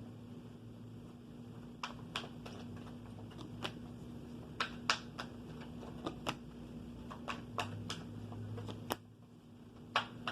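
Tarot cards being handled on a table: irregular light clicks and taps, about a dozen spread over several seconds, over a faint steady hum.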